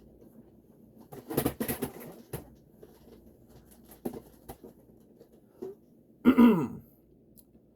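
Scattered clicks and knocks, then a short human vocal sound falling in pitch, like a groan or throat noise, about six seconds in.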